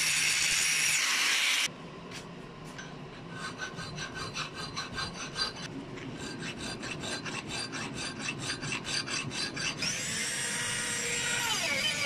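An angle grinder's abrasive disc cutting into a steel hatchet head cuts off suddenly about two seconds in. A round file then rasps along the freshly cut curved edge in quick, even strokes. Near the end a handheld rotary tool with a sanding drum starts up with a high whine and grinds the curve, its pitch dropping as it bears on the metal.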